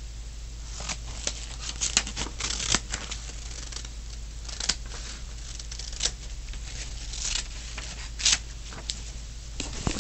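Scissors cutting paper: a run of irregular snips and rasps starting about a second in, over a steady low hum.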